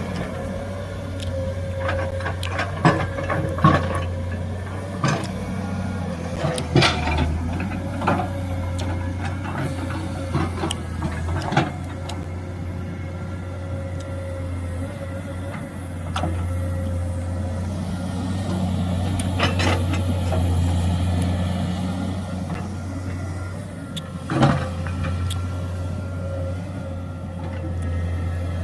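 Excavator's diesel engine running steadily, its load rising for several seconds past the middle, with scattered sharp metal knocks and clanks.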